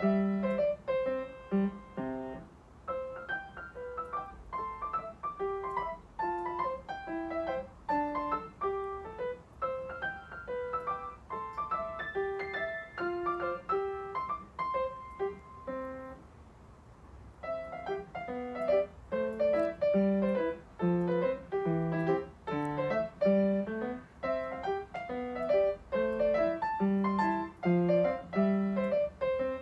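Background music: a gentle piano melody of single notes over a low accompaniment, with a brief pause a little past halfway.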